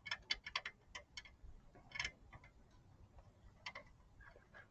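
Light, irregular clicks and ticks of hand work on an automotive A/C line fitting: a quick run of clicks at the start, then a few single clicks spaced out.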